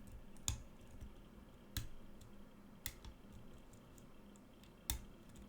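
Pin-tumbler challenge lock being picked with a pick and tension tool: four sharp metal clicks at uneven intervals as the pins are worked and set, the core dropping into a deep false set.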